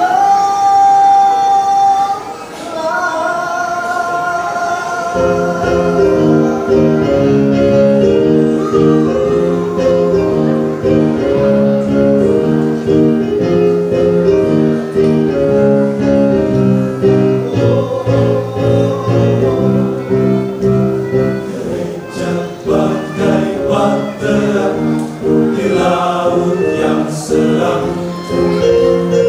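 A church choir singing in harmony. The first few seconds carry only high held notes, then the lower parts come in about five seconds in and the full chords continue.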